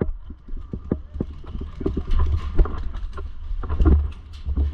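Irregular short clicks and knocks, several a second, over a low rumble of wind or handling on the microphone.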